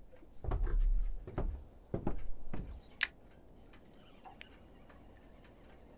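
Light clicks and knocks from a fishing rod and reel being handled, with a brief low rumble near the start and one sharp click about three seconds in.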